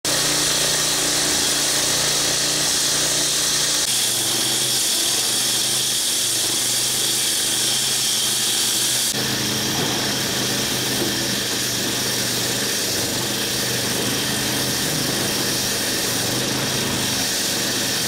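Engine-driven walk-behind road saw running, its blade cutting into the street surface. About nine seconds in it gives way to a JCB 3CX backhoe loader's diesel engine working as the loader digs a trench.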